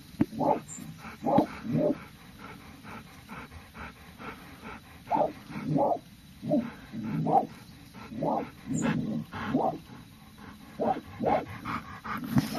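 Dog barking repeatedly, short barks in bouts of two or three, about a dozen in all.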